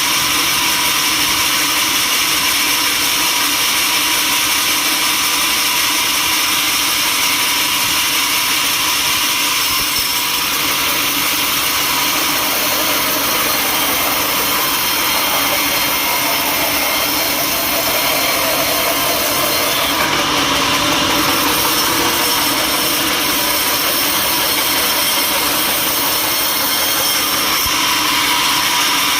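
Sawmill machinery running steadily: a loud, unbroken mechanical rush of noise with a faint steady whine.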